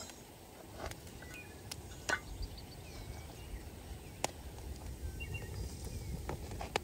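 Wood fire of split kindling crackling, with a few sharp pops spread through the moment, over a low rumble of wind on the microphone. Small birds chirp faintly now and then.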